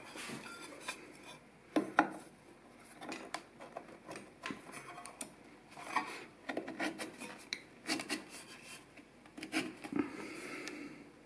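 Stainless steel sleeve being worked into an aluminium engine block's cylinder bore by hand: irregular metal-on-metal scraping and rubbing with sharp clinks, the loudest knocks about two seconds in.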